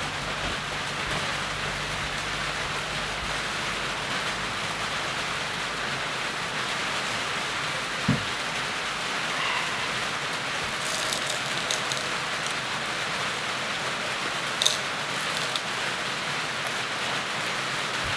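Steady rain falling, an even hiss throughout. A soft thump comes about eight seconds in, and a few brief clicks follow later.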